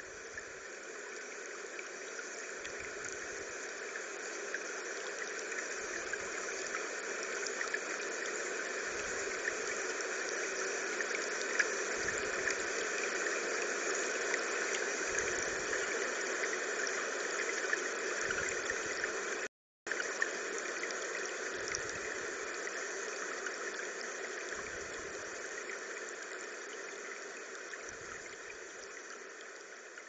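Flowing river water: a steady rushing noise that slowly swells and then fades toward the end, with a brief dropout about twenty seconds in.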